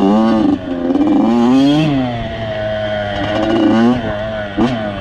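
Two-stroke off-road engine revving, its pitch climbing and dropping several times as the throttle is opened and closed, with a short blip near the end.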